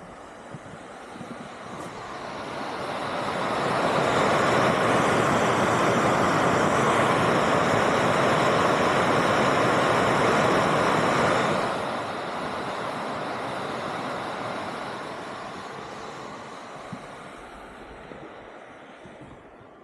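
Geothermal steam vent (fumarole) hissing steadily. It swells over a couple of seconds, holds loud, drops sharply a little past halfway, then fades away.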